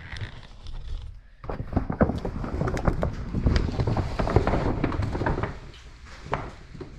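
Footsteps with irregular knocks and thuds, starting about a second and a half in and fading out near the end.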